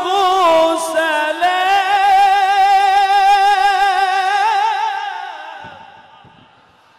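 Quran recitation: one man's high voice chanting an ornamented line with quick wavering turns, then holding a long note that fades away over the last two seconds.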